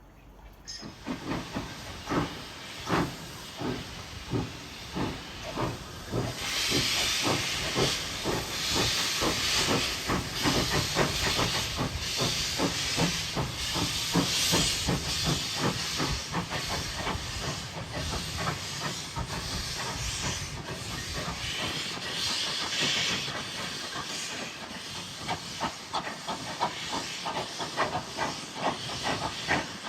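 Steam locomotive working, its exhaust chuffs coming quicker as it gets going, with loud steam hissing from about six seconds in.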